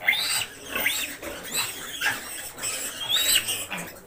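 A ten-day-old piglet squealing in distress while restrained for a vitamin injection: a run of shrill squeals, about two a second.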